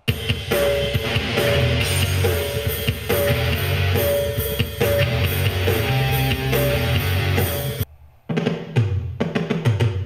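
Music with a drum beat and strong bass playing from a Bose SoundLink Flex Bluetooth speaker, streamed from a phone. The music drops out briefly about eight seconds in and then comes back.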